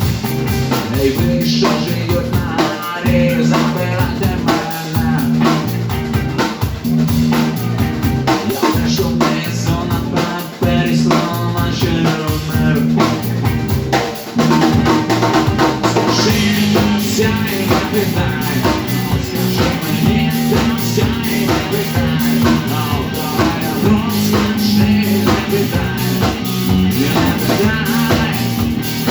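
Rock song played on drum kit and guitar, with a steady beat and no clear words.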